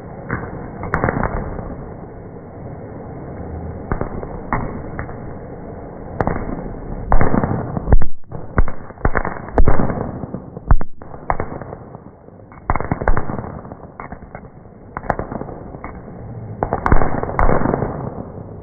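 Fireworks going off: a continuous rumble of bangs with many sharp, separate booms and cracks, coming thickest through the middle and again toward the end.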